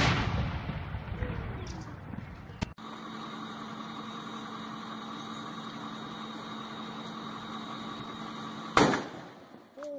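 Electrical blasts on power lines. A loud bang at the start trails off into rumbling over about two and a half seconds. A steady hum follows, then a second short, sharp bang near the end, as a live overhead line is worked with a hot stick.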